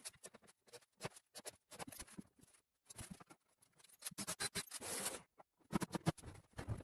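Scattered light knocks, clicks and scraping from hand work with tools or materials, with a longer scraping rub about four seconds in and a cluster of knocks near the end.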